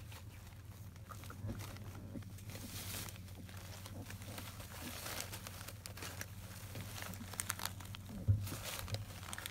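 Shredded newspaper bedding crinkling and rustling in scattered bursts as Labrador puppies shift about on it, with a louder crackle about eight seconds in. A steady low hum runs underneath.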